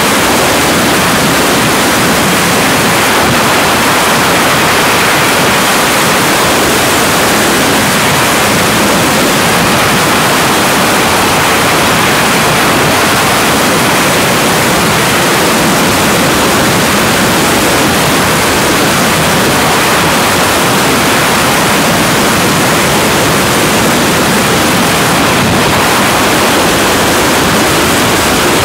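Loud, steady rush of freefall wind buffeting the camera's microphone as the skydiver falls, an even roar with no breaks.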